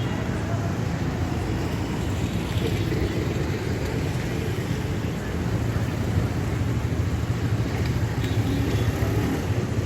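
Road traffic at a busy junction: a steady rumble of vehicle engines and tyre noise, with no single sharp event.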